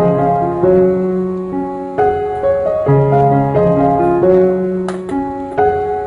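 Background piano music: a melody of steady notes over sustained bass notes, with a fresh phrase starting about two seconds in.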